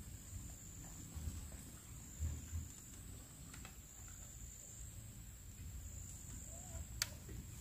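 Insects chirring with one steady high-pitched note, faint under soft low thumps, with a single sharp click near the end.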